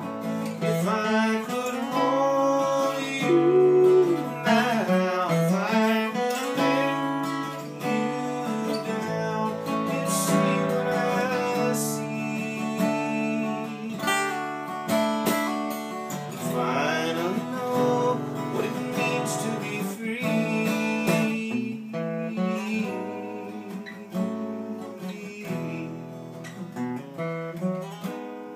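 Acoustic guitar strummed steadily while a harmonica in a neck rack plays the melody over it, with some bent notes: an instrumental break in the song, with no singing.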